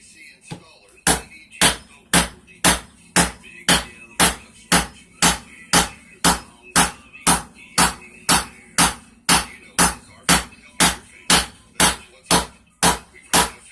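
Hand hammer striking a hot railroad spike on an anvil in a steady rhythm of about two blows a second, spreading the steel out to shape a knife blade.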